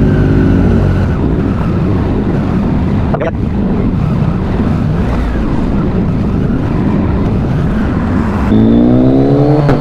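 Sport motorcycle engine heard from the rider's seat, mixed with road noise while riding slowly through traffic. The engine note drops in the first second, and near the end the revs climb steadily as the bike accelerates.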